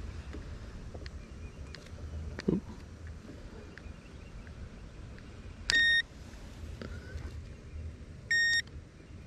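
Two short electronic beeps, each about a third of a second long and a couple of seconds apart, over a steady low rumble. A brief knock comes before them.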